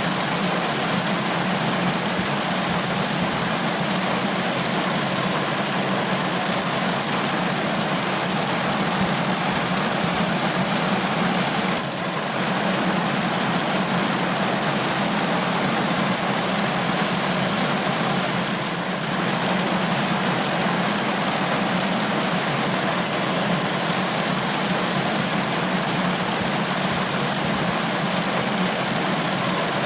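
Steady rain drumming on a car roof, an even hiss that eases slightly twice for a moment.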